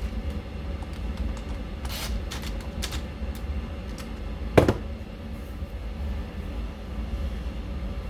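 Small metal tire chains and their hooks clicking and clinking as they are worked onto an RC truck's tire by hand: scattered light clicks, with one sharper clack about halfway through. A steady low hum runs underneath.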